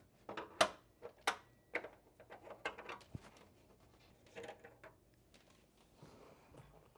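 Irregular small clicks and taps of a hand tool working a screw on the underside of a NordicTrack S22i exercise bike's plastic side panels, busiest in the first few seconds.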